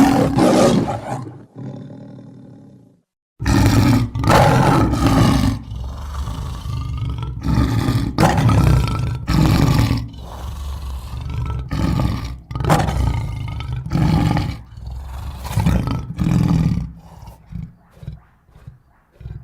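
Barbary lion roaring: a first roar and a softer trailing sound, then after a brief pause a long bout of deep roars that shorten into a series of weaker grunts fading out near the end.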